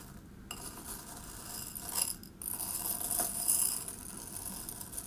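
A metal spoon stirring and scooping through a ceramic bowl of small chocolate-coated crispy rice balls, the hard little balls clicking and rattling against each other, the spoon and the bowl.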